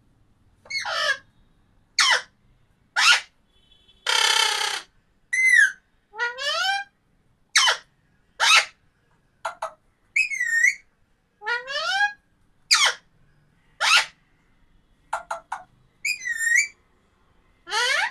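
Parrot giving a run of short, piercing whistles about once a second, most sweeping quickly down in pitch and a few rising or wavering, with one longer harsh screech about four seconds in.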